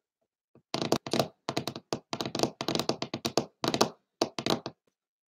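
A rapid, irregular run of short taps and knocks, starting about a second in and stopping shortly before the end.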